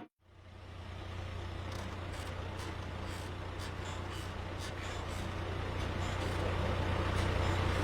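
Vehicle engine running with a steady low drone. It fades in after a moment of silence at the start and grows slowly louder.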